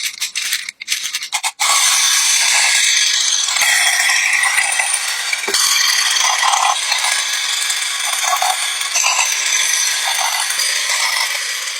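A dense rattling that starts abruptly, broken up for the first second and a half, then continuing steadily.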